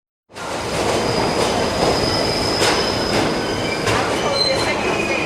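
New York City subway train running on the rails, heard from on board, starting abruptly about a third of a second in. Steady wheel squeal sits over the running noise, with a few sharp clicks of the wheels passing over rail joints.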